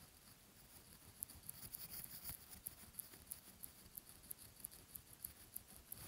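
Faint, quick scratchy ticking of fingertips rubbing and pressing over the skin of the face in a facial massage, several ticks a second, starting about a second in.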